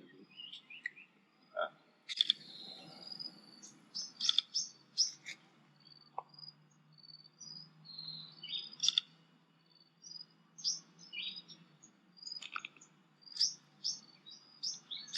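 Wild birds chirping and calling: many short, high chirps and brief trills, coming every second or so from more than one bird.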